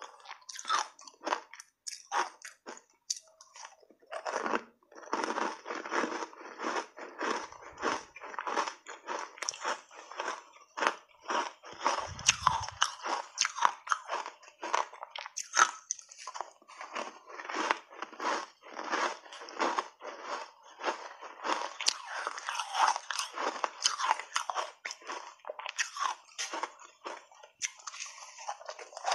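Close-miked biting and chewing of soft ice chunks coated in matcha powder: a dense run of crisp crunches, one after another.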